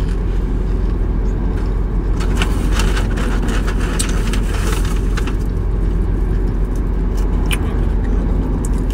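Steady low rumble of a parked car's engine running at idle, heard inside the cabin. Over it, the crinkling and small clicks of a plastic dipping-sauce packet being peeled open, from about two seconds in to about five seconds in and once more near the end.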